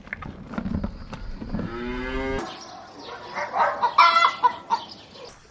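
A cow moos once, a short call about a second and a half in, followed by a run of higher, brighter calls from chickens clucking.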